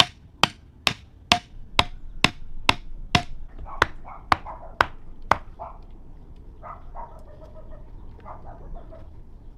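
Steady chopping with a blade on a wooden block, about two strokes a second, stopping about five seconds in. Softer animal calls follow.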